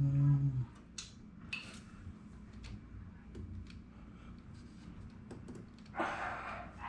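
Small metallic clicks and taps of tools and parts being handled while fitting a car's clutch cable, after a short low tone in the first half-second.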